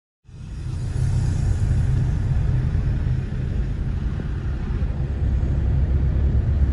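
Steady low rumble of a moving vehicle, starting abruptly about a quarter second in.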